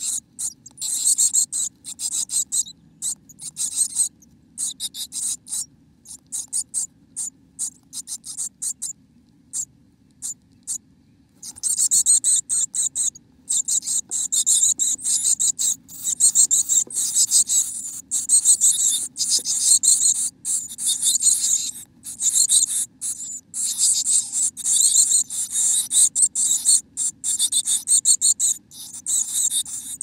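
Chickadees moving inside a nest box close to the microphone: high, hissy, scratchy sounds in rapid short bursts, sparse for a few seconds and then almost continuous from about twelve seconds in. A faint steady low hum sits underneath.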